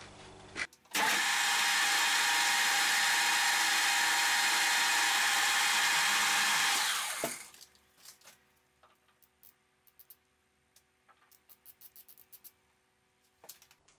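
Metal lathe running steadily under power during a light finishing cut on a mild steel bar. It stops about seven seconds in and the spindle winds down, followed by faint light clicks and ticks as a micrometer is set on the turned diameter.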